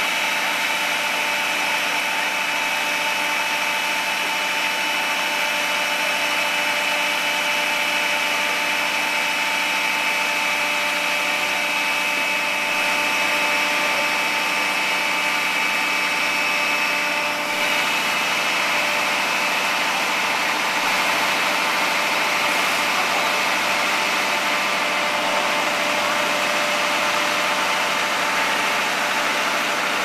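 Fire department aerial ladder truck's engine running steadily, with a constant whine over the engine hum and a brief dip about halfway through.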